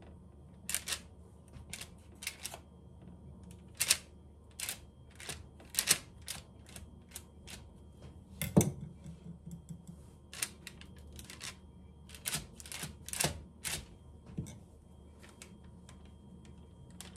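A kitchen knife scoring soft dough on a parchment-lined metal baking tray makes irregular light clicks and taps as the blade meets the paper and the tray. About eight and a half seconds in there is one louder knock.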